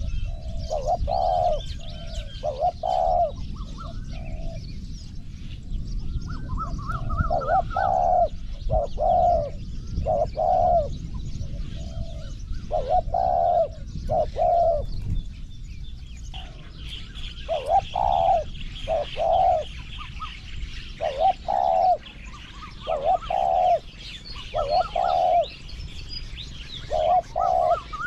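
Spotted dove cooing over and over in short phrases of two or three coos, with a pause about halfway. This is the territorial call that a decoy dove gives to draw wild doves in.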